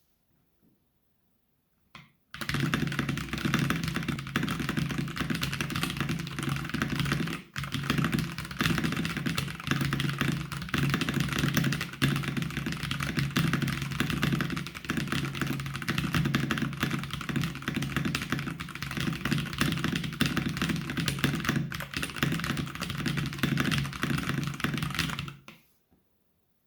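Mechanical keyboard fitted with POM jelly keycaps, typed on very fast in a continuous run of clicking keystrokes, about 180 words a minute. One keystroke comes about two seconds in, the run starts just after it, breaks briefly around a third of the way through, and stops shortly before the end.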